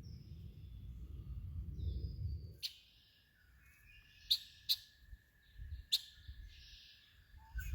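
Wild birds chirping and calling along a creek, with one thin high note held steadily for several seconds and a few sharp clicks in the second half. A low rumble fills the first couple of seconds, then drops away.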